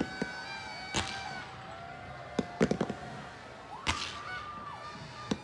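Aerial fireworks bursting: single sharp bangs roughly a second apart, with a quick cluster of cracks a little before the middle.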